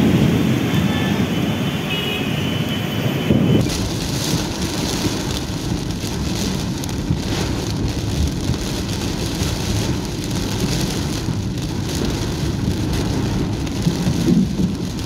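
Heavy rain with vehicles driving along a flooded street. A few seconds in, this gives way to dense, steady rain beating on a car's windscreen, heard from inside the car.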